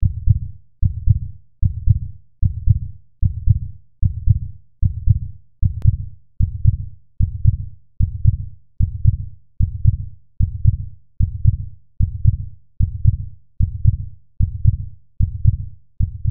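A steady pulse of low, heartbeat-like thumps, a little over one a second, each dying away before the next.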